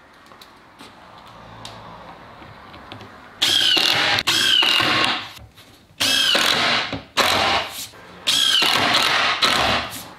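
Cordless impact driver driving screws into an MDF template. There are three bursts of about one to one and a half seconds each, and the motor whine rises at the start of each one.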